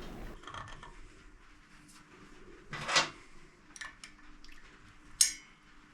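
Workshop hand-tool noises: a spanner and small metal parts being handled while the regulator's single mounting bolt and wires are undone. There are scattered light clicks, a louder short clatter about three seconds in, and a sharp metallic click a little after five seconds.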